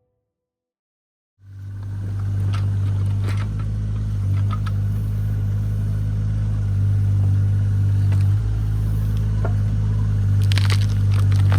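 A digger's engine running steadily from about a second and a half in, with a few scattered knocks and clanks, as the machine works tree stumps out of the ground.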